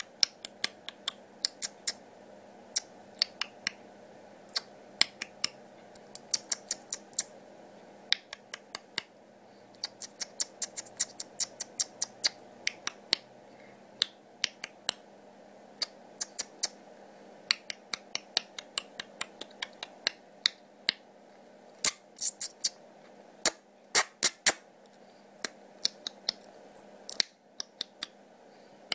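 Sharp clicks, irregular and often in quick runs of several a second, over a steady faint hum.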